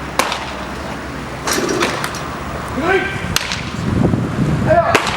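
Pitched baseballs smacking into catchers' mitts in a bullpen, several sharp pops a second or two apart, with a voice calling out about three seconds in.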